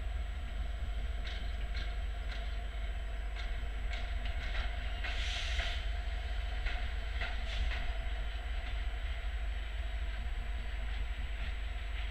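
CFR passenger coaches rolling slowly past along a station track: a steady low rumble with wheels clicking over rail joints at irregular intervals, and a short hissing burst about five seconds in.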